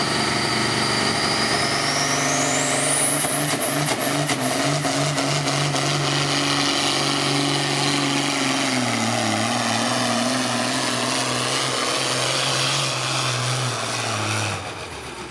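Pulling vehicle's engine running hard at a held, steady speed under load, with a high whine rising in pitch about two seconds in. The engine note dips slightly past the middle and falls away near the end as the pull finishes.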